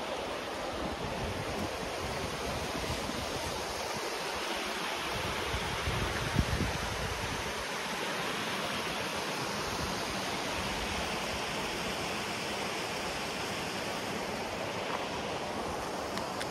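Steady rush of water sliding and splashing down a steep granite rock slab at the head of a waterfall. A brief low thump comes about six seconds in.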